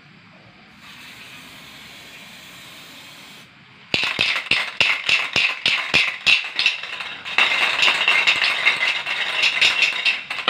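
Aerosol spray-paint can being shaken hard, the mixing ball inside rattling in quick clicks from about four seconds in, turning denser and more continuous over the last few seconds.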